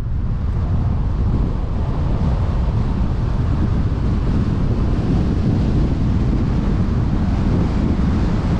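Steady wind buffeting a camera microphone on a vehicle moving along a road, a dense rumble with no distinct engine note.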